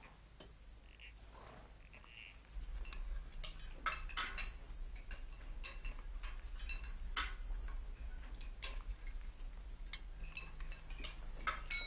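Cutlery and glassware clinking at a dinner table, starting after a quiet first couple of seconds. Near the end a glass is tapped with a knife and rings with clear, steady tones, calling the table to attention for a speech.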